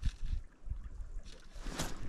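Wind buffeting the microphone in low, uneven rumbles over the flow of an open river, with a brief rush of noise near the end.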